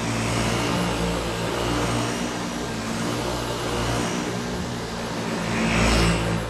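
Dyson V8 cordless stick vacuum running with its motorised floor head on carpet: a steady whir with a low hum underneath. It gets louder about six seconds in as the head passes close by.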